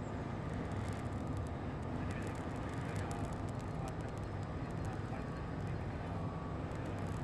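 Steady low wind rumble on the microphone, with faint light crackles and rustles from a smouldering tinder bundle of punkwood and dry grass held in the hand, mostly in the first half.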